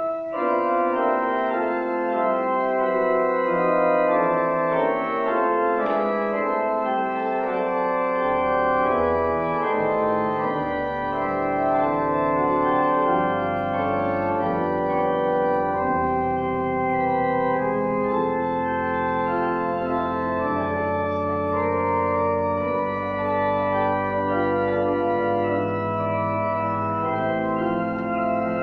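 Church pipe organ playing slow, held chords, with deep pedal bass notes coming in about eight seconds in.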